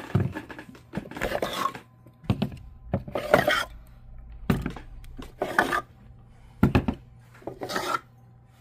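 A jewelry box being handled and opened: a run of short knocks, scrapes and rustles, with the jewelry inside clinking.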